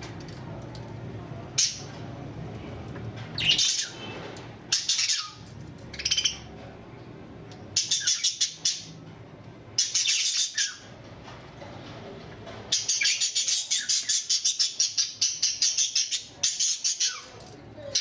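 Caged budgerigars chirping in short, high bursts, then breaking into a fast chattering run of rapid chirps for several seconds near the end, over a faint low hum.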